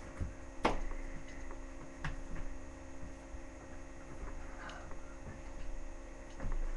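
Steady electrical hum picked up by a webcam microphone, with a few sharp knocks and thumps on top, the loudest one under a second in.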